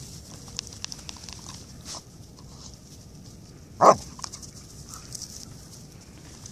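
A husky gives one short, loud bark about four seconds in, with faint scattered ticks of the dogs' paws on snow around it.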